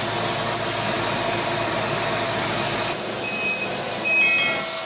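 Self-loading concrete mixer truck's engine running steadily, with a reversing alarm beeping repeatedly from about three seconds in.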